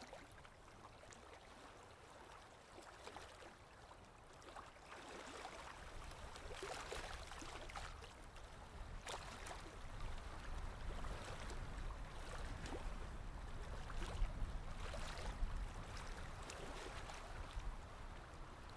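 Drawing strokes on paper: repeated scratchy rubs of short and longer length, with a low rumble underneath that grows louder about halfway through.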